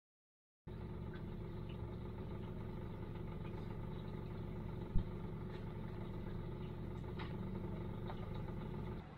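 Outboard motor of a C-Dory 22 cruiser idling steadily, heard from inside the boat's cabin; it sets in abruptly just under a second in, with one short knock about five seconds in.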